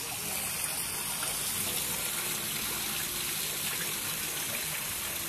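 Steady rush of water pouring into a garden koi pond.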